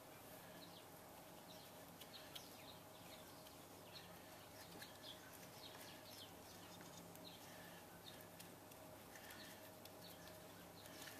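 Near silence: faint background hiss with scattered faint, high bird chirps.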